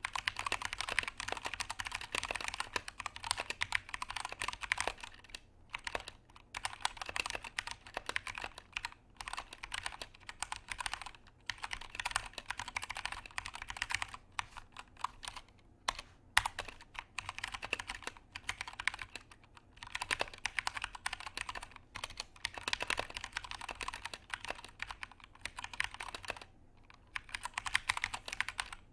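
Keychron K2 mechanical keyboard with an aluminum frame being typed on: quick streams of clacking keystrokes in runs, broken by several brief pauses.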